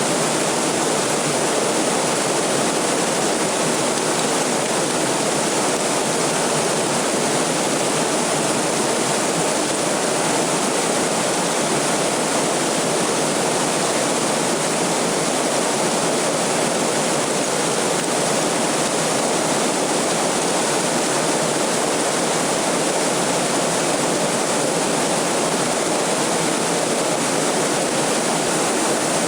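A waterfall's falling water rushing steadily and evenly, without a break or change.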